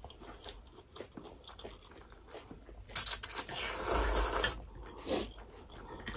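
Noodles being slurped from a bowl of soup, one loud hissing slurp lasting about a second and a half a few seconds in, with soft chewing and mouth clicks before and after it.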